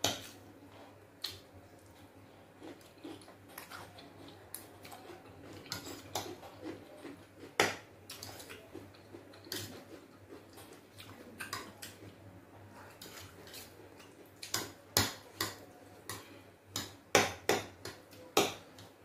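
Fork clinking and scraping against a plate while twirling spaghetti: scattered sharp clicks, coming thickest near the end.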